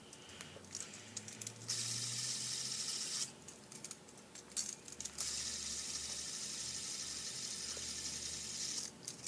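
Fidget spinners whirring as they spin on their bearings, a steady high hiss in two stretches that start and stop abruptly. Small clicks and rattles of the spinners being handled fall in between.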